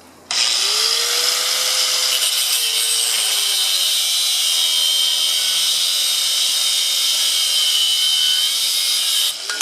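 Electric angle grinder running off a pedal-powered generator, its disc cutting into a steel bike lock with a loud, steady, high screech. It starts abruptly a moment in and stops shortly before the end.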